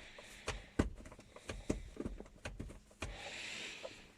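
Plastic clicks, knocks and rubbing as an aftermarket armrest lid is worked into place on an Audi A6 C5 centre armrest, with a short rubbing hiss about three seconds in.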